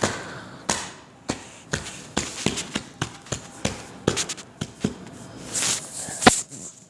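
A series of irregular taps and knocks, about two a second, with brief rustling between them and one sharper knock near the end.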